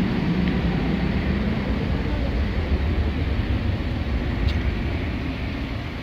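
Jet airliner's engines giving a loud, steady rumble that begins to ease off near the end.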